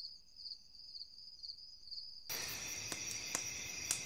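Crickets chirping in short, regular pulses, about two to three a second. About halfway through, the crackle of a wood bonfire cuts in, a dense hiss with several sharp pops, while the crickets keep chirping.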